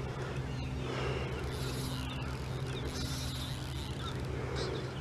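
A boat motor idling with a steady low hum, with birds chirping repeatedly over it.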